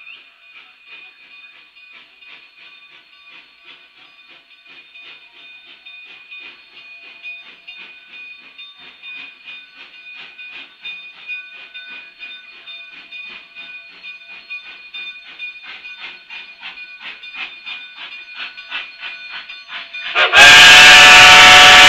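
Narrow-gauge steam locomotive pulling out with a train: a faint, steady rapid beat of exhaust chuffs that grows gradually louder. About 20 seconds in, its steam whistle blows, suddenly and very loud, with several tones sounding together.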